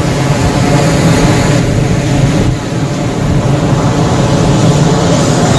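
Steady low drone of a fjord cruise boat's engines under the rushing of its wake, with wind buffeting the microphone.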